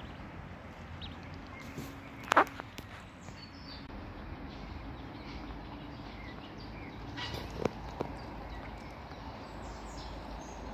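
Faint high calls from mallard ducklings over steady outdoor background noise. A short sharp sound about two seconds in is the loudest thing, with two smaller ones around seven to eight seconds.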